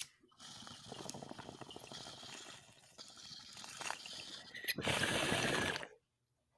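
Glass bongs bubbling as smoke is drawn through their water, a steady gurgle for about four and a half seconds, followed by a louder rush of breath for about a second that cuts off suddenly.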